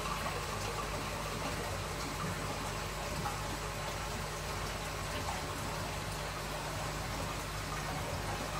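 Aquarium aeration and filtration: steady bubbling, trickling water over a low, continuous pump hum.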